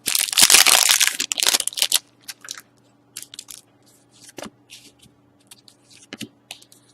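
A trading-card pack's wrapper being torn open and crinkled loudly for about two seconds, then scattered short, quieter crinkles and clicks.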